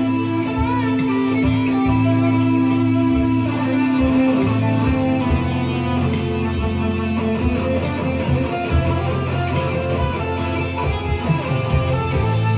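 Guitar improvisation: guitar chords and melody over sustained bass notes.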